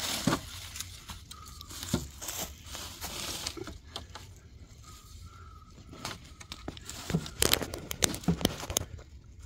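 Dry leaves and wood-chip mulch rustling and crackling under a person kneeling and shifting, with light knocks of a wooden board being set into a raised-bed frame; a run of sharper knocks and crackles comes about seven to nine seconds in.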